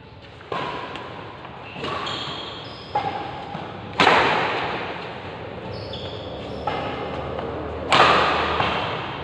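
Badminton rackets hitting the shuttlecock in a rally: about six sharp smacks, one every second or so, the two hardest about four and eight seconds in. Each hit rings out in the echo of a large bare hall.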